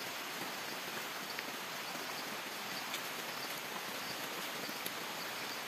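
Steady outdoor forest ambience: an even, faint hiss with a few scattered light ticks.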